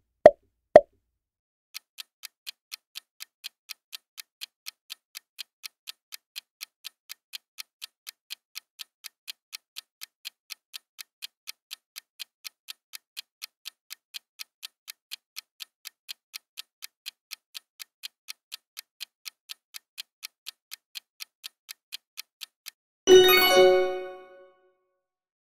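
Quiz sound effects: two quick pops as answer choices appear, then a clock ticking steadily, about four ticks a second, for a countdown timer. Near the end the ticking stops and a bright chime rings out and fades as the answer is revealed.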